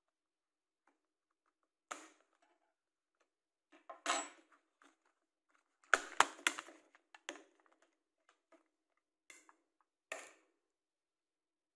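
Plastic cover of a power bank, bulged by its swollen battery, being pried off with a scalpel: a string of sharp clicks and cracks as the case clips snap loose, with a short scrape about four seconds in and the loudest cracks about halfway through.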